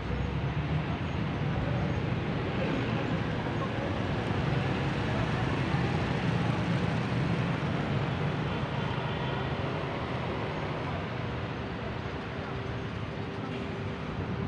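Steady city street ambience, mostly the even noise of road traffic.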